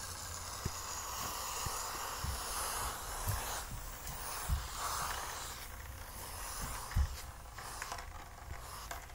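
Steam hissing from the Ariete 4164 Multi Steam System's cloth-covered hand nozzle as it is played over plush toys, in long spells with brief breaks. A few faint knocks are heard under it.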